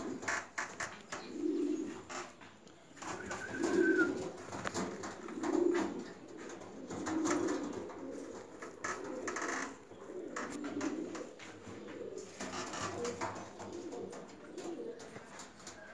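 Domestic pigeons cooing over and over, low burbling coos one to two seconds apart, with light clicks and scuffs between them.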